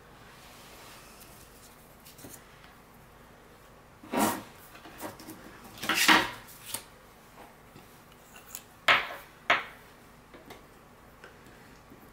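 Objects being handled out of sight: a few sharp clacks and clatters, one about four seconds in, a longer one around six seconds, and two close together near nine seconds, with faint small knocks between them.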